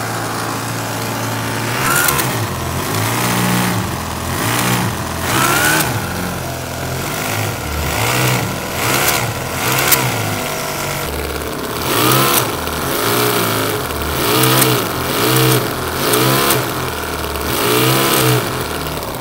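Toyan FS-V800 miniature four-stroke glow-plug V8 model engine running, its throttle blipped over and over so the revs rise and fall every second or two.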